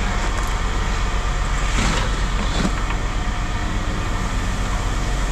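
Steady low rumble of an idling vehicle engine, with a couple of short knocks about two seconds in.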